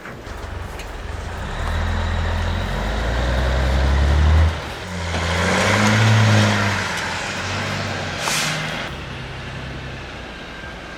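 1987 Peterbilt log truck's diesel engine pulling under load: it builds up, drops off sharply about four and a half seconds in as a gear is changed, then builds again and eases off. A short hiss comes about eight seconds in.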